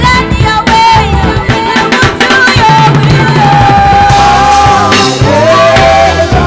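Worship music: a singer over a band with drum kit and bass, holding one long note about halfway through.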